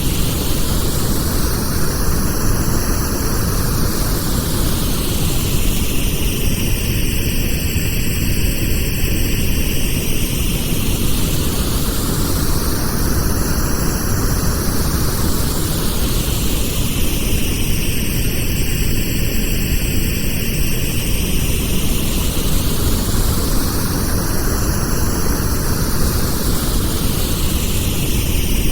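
Pink noise for tinnitus masking: a steady, even hiss across all pitches, with a slow phaser-like whoosh that sweeps up and down about every eleven seconds.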